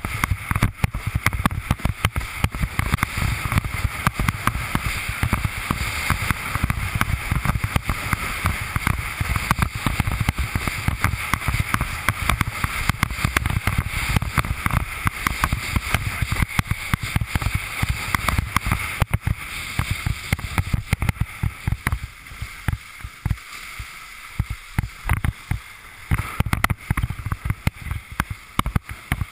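Windsurf board planing fast over chop: water rushing under the hull and quick, irregular slaps as the board hits the waves, with wind buffeting the board-mounted camera's microphone. The rumble and slapping ease for a few seconds about three-quarters through, then pick up again.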